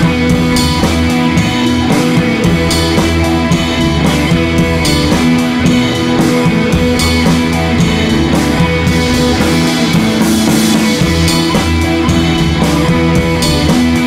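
Rock music with guitar and drums, playing steadily and loud.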